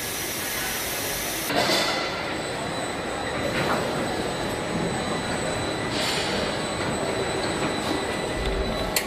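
Car assembly-line machinery running: a steady mechanical hiss and hum with a thin high whine and a few sharp clanks. The sound shifts with a clank about a second and a half in, and a steadier mid-pitched hum joins near the end.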